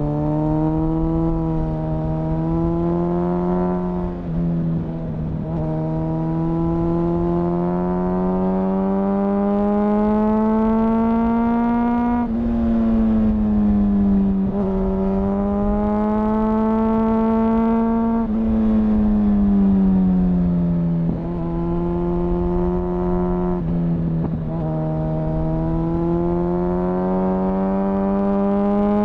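2004 Honda CBR1000RR Fireblade's inline-four engine, restricted to 35 kW, pulling hard through the gears: the pitch climbs, drops sharply at each of several shifts, and falls smoothly once as the throttle is rolled off before pulling again. Wind rumble runs underneath.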